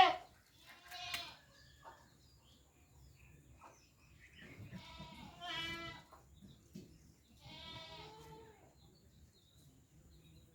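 Goat bleating three times, fairly faint: a short bleat about a second in, then two longer, wavering bleats about halfway through and again a couple of seconds later.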